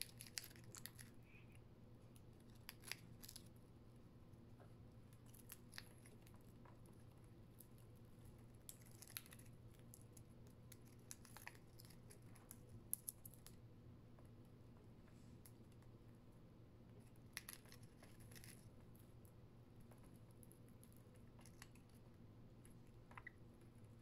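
Budgies biting and tearing small pieces from a sheet of paper held in the hand: faint, irregular crisp snips and crackles, a few seconds apart, over a low steady hum.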